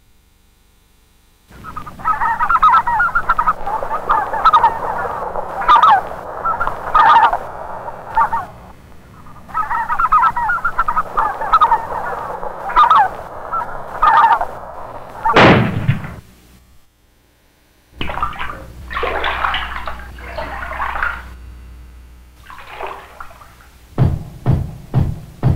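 A flock of geese and ducks calling, many short honks and quacks overlapping into a dense chatter. About two-thirds of the way in, a loud call sweeps down in pitch, then the calling breaks off briefly and resumes more sparsely. A few sharp thumps come near the end.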